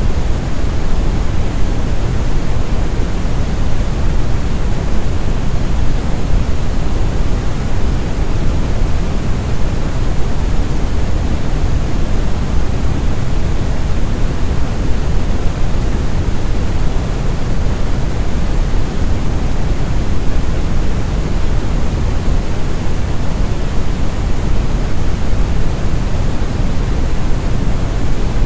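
Brown (red) noise: a steady, smooth, deep rumbling hiss with most of its energy in the bass.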